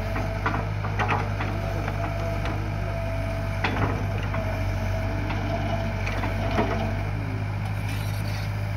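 Cat E120B hydraulic excavator working, its diesel engine running steadily under a thin steady whine, as it dumps sand into a truck bed. Scattered knocks and clanks break in several times.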